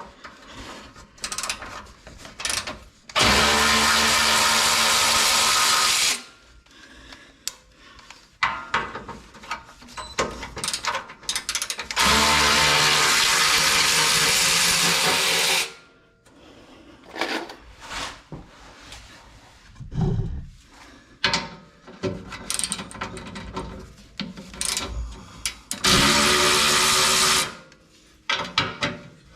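Electric ratchet spinning out 14 mm bolts, in three steady runs of about three seconds, three and a half seconds and a second and a half. Between the runs come scattered clicks and clatter of tool and hardware handling.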